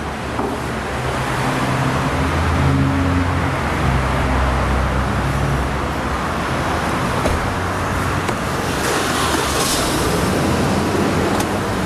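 A car engine running, a steady low rumble, with road traffic noise around it.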